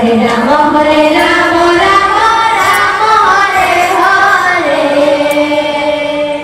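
Women's devotional sankirtan (kirtan) singing: a long drawn-out sung line with gliding pitch over a steady held instrumental tone.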